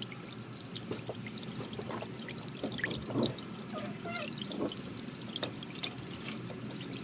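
Soft background music with faint sustained tones, overlaid by scattered light, sharp clicks.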